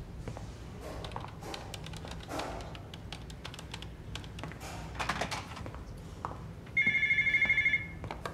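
Desk telephone ringing once, a rapid electronic trill lasting about a second near the end. Before it, a run of light clicks and taps.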